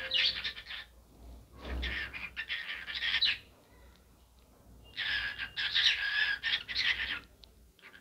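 Cockatiel chattering in three bursts of rapid chirps: one at the start, one about two seconds in, and the longest about five seconds in.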